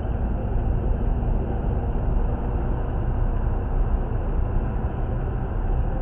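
Steady low rumble of a car driving at road speed, tyre and engine noise heard from inside the cabin through a dashcam's built-in microphone.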